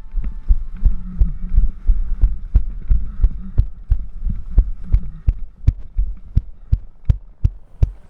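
Footsteps of someone carrying a body-worn camera, moving briskly over the ground. There is an even thud about two to three times a second, with the camera and its microphone jolting at each step.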